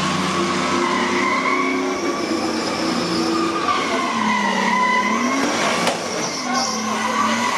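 Race car engines running at speed, their pitch rising and falling over a steady haze of noise.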